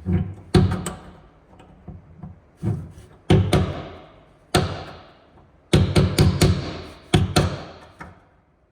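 Hammer blows on a punch set against a seized Phillips screw head, notching it and then knocking it sideways to break it loose. About a dozen sharp metal strikes, each ringing briefly, come singly and in quick bursts.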